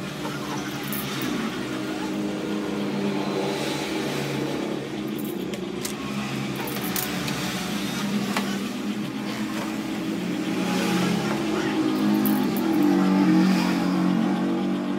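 Electric heat gun running, its fan motor giving a steady hum that grows louder for a few seconds near the end.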